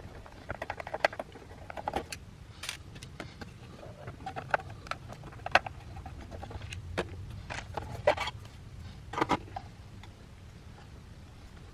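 Irregular clicks, taps and short knocks from hands and tools handling a Hakko FX-888D soldering station as it is being taken apart.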